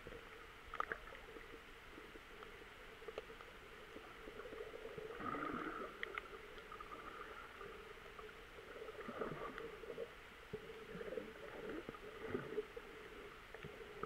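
Muffled sloshing and gurgling of shallow sea water, picked up by a camera just under the surface. It comes in uneven swells with a few short knocks.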